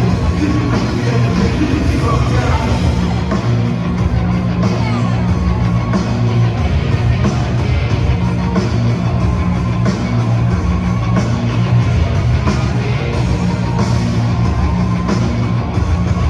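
Loud rock music with singing, playing steadily throughout.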